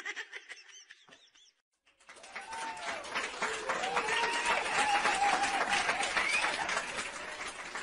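Applause, a dense clatter of many hands clapping with voices rising over it, starting about two seconds in after faint chirps and a short gap.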